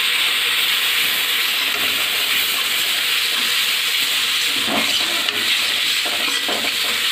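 Onions and ginger-garlic paste with ground spices frying in hot oil in a steel kadai, a steady sizzle as they are stirred with a metal spatula.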